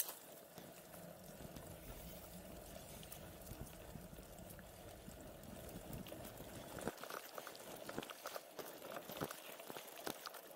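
Gravel bike rolling along a dirt forest track: a steady crunch and hiss of the tyres on the loose surface, with the bike rattling and knocking over bumps, the knocks coming thicker in the second half.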